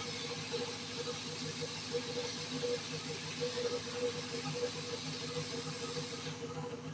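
A steady hiss of rushing air that stops near the end, over a faint low pulsing hum.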